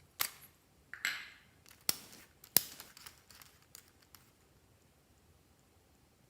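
A handful of sharp clicks and short crackling rustles over about four seconds, the loudest a sharp snap about two and a half seconds in, then quiet room tone: hands working with slime and add-ins.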